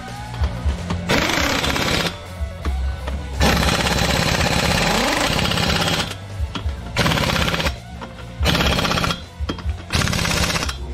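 Impact wrench hammering lug nuts tight on a refitted wheel, running in about six short rattling bursts, the longest about two and a half seconds near the middle.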